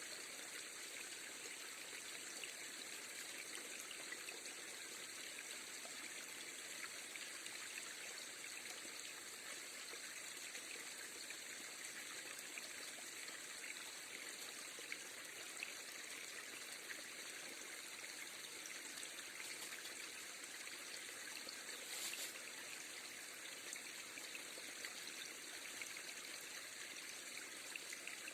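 River water flowing steadily over stones, a continuous rushing and trickling, with one brief louder rustle about three quarters of the way through.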